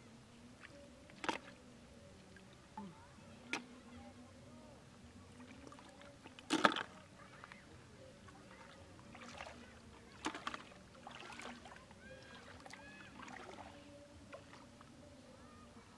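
Shallow water splashing and sloshing as a person wades barefoot and dips a hand in to pick snails off the bottom, with a few short sharp splashes, the loudest about six and a half seconds in.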